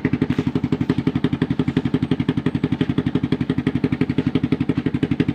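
Suzuki underbone motorcycle's engine idling loudly with an even, rapid pulse of about ten beats a second. The bike is noisy because its exhaust is holed.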